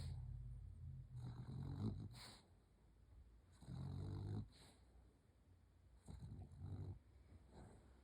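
A sleeping dog snoring: snores a couple of seconds apart, the longest around four seconds in, then softer, shorter breaths.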